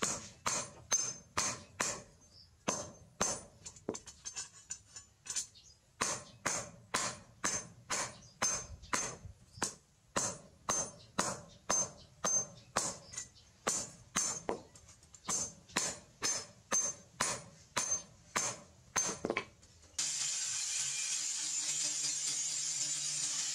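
Hand hammer striking a steel strip cut from a motorcycle brake disc on a steel plate, regular blows about two a second, each a sharp metallic clang with a high ring. About 20 s in, an electric angle grinder takes over and runs steadily, cutting steel.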